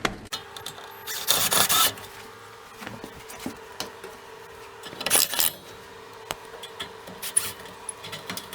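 Self-tapping screws being driven back into a refrigerated display case: two short bursts of screwdriving noise, about a second in and about five seconds in, among light clicks and handling sounds, over a faint steady hum.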